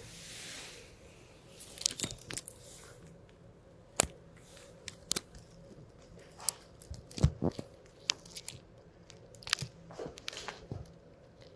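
Irregular soft clicks, taps and crackles of small things being handled, with a short soft hiss at the start and a small cluster of clicks near the middle.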